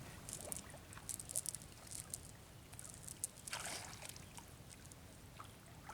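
Water splashing and dripping in many small spatters, with a somewhat longer splash about three and a half seconds in, over a faint low rumble.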